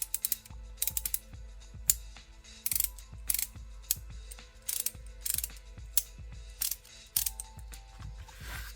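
DuraTech 72-tooth box-end ratcheting wrench being worked back and forth by hand, its pawl clicking in short quick bursts, stroke after stroke.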